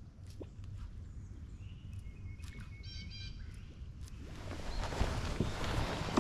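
A bird calls briefly about halfway through, in a short run of quick repeated notes, over a steady low rumble. A broad hiss swells up from about two-thirds of the way in, with a few light clicks.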